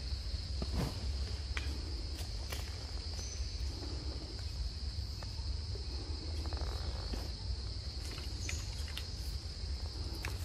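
Forest insects droning steadily on one high pitch, over a low steady rumble, with a few scattered small clicks.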